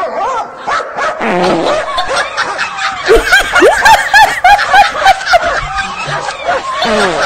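A woman laughing: she breaks into a quick run of short, repeated laughing bursts about three seconds in, loudest for a couple of seconds, then laughs more lightly.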